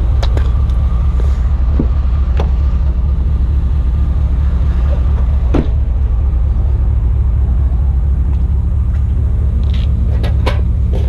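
Engine idling with a steady low rumble, and a few sharp clicks and taps scattered through it.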